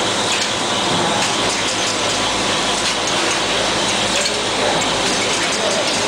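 PET bottle filling and capping machine running: a steady mechanical noise with many light clinks and clicks throughout.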